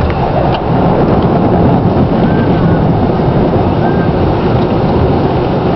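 A moving truck: a steady, loud rumble of engine and running noise, heard from inside the cab.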